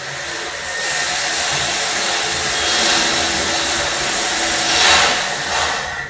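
A plastic snack packet crinkling without a break as a rhesus macaque rummages and tugs at it, loudest about five seconds in.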